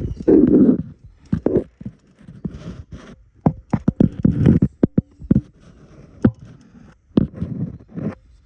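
Irregular metal knocks, clunks and scraping as a replacement starter motor is worked into place in the engine bay.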